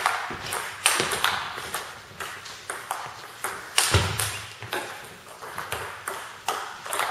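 A table tennis rally: the ball clicking off the bats, one of them faced with Nittaku Monophonic pimpled rubber, and bouncing on the table, a sharp tick every half second or so with echo from the hall. About four seconds in comes a louder, deeper hit as a player swings hard.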